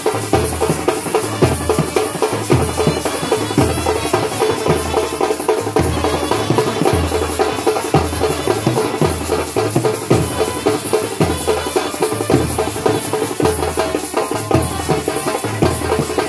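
Indian brass band playing: trumpets and other brass horns over a steady, regular bass drum beat.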